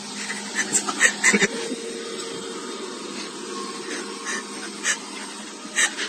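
Robot vacuum cleaner running with a steady motor hum, broken by a few brief sharp sounds, clustered in the first second and a half and again near the end.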